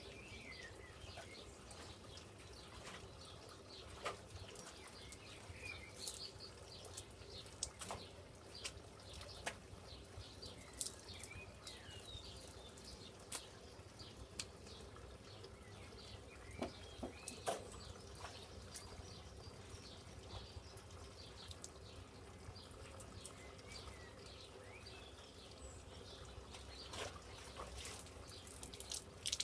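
Quiet garden ambience: small birds chirping now and then, with scattered light taps and drips.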